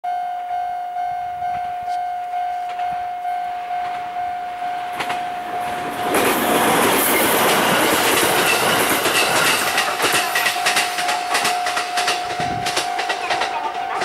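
Level-crossing warning bell ringing in a steady ding-ding rhythm, a little over two strikes a second. About six seconds in, a JR East 701-series electric local train passes close: a loud rush of wheels on rail with a run of sharp clicks over the rail joints, the crossing bell ringing on beneath it.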